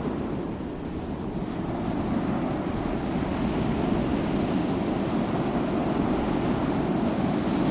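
Sea waves breaking and washing on a shore: a steady rushing surf that eases slightly about a second in and builds again.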